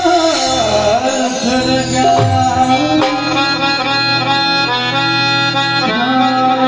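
Live Indian devotional music: an electronic keyboard playing a held, reedy melody over a steady low drone, with a few drum strokes from tabla or dhol. A sung line trails off in the first second and singing comes back near the end.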